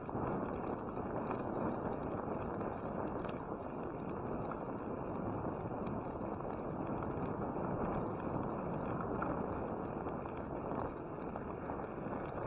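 Bicycle riding noise: a steady rumble of tyres rolling on a paved path mixed with wind on the microphone, with a scatter of faint ticks and crackles over it.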